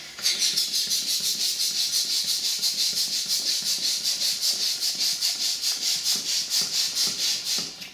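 Hand-held balloon pump working fast, each stroke a short hiss of air forced into a balloon, in a quick even rhythm that stops near the end.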